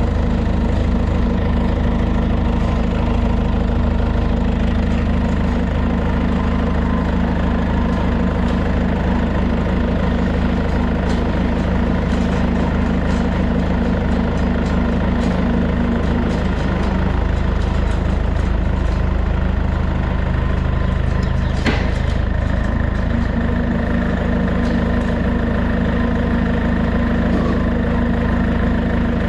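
John Deere 675B skid loader's engine idling steadily, with a single sharp knock about twenty-two seconds in.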